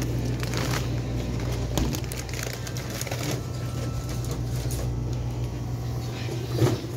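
Supermarket aisle ambience: a steady low hum with scattered clicks and rattles from a shopping cart being pushed along, and a louder knock near the end.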